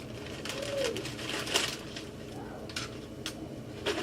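Scattered light clicks and rustles of ice cream cones being picked through and handled, the sharpest about a second and a half in, with a short low tone that rises and falls near the start.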